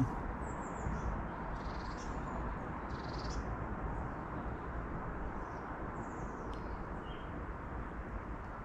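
Steady outdoor background noise with several short, faint, high-pitched bird calls scattered through it, some falling in pitch.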